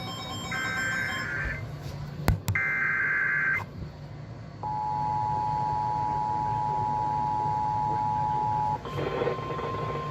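Emergency Alert System alert opening: two buzzy digital SAME header data bursts, then the steady two-tone EAS attention signal for about four seconds. Near the end it switches to a single steady tone.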